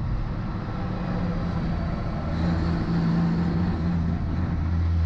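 Diesel engine of a racing semi-truck running hard on the track, heard from inside its cab: a steady low drone, with a second, higher engine note coming in about two seconds in.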